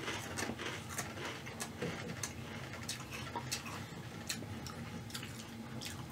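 Ridged Ruffles potato chips being chewed with the mouth closed: quiet, irregular crisp crackles, several a second.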